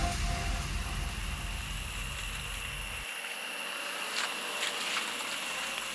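A steady, high-pitched chorus of forest insects. A low rumble runs beneath it and cuts off suddenly about three seconds in.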